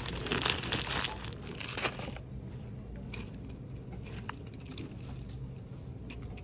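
Clear plastic bag of decorative paper shred crinkling as it is handled, for about the first two seconds; then a few light clicks.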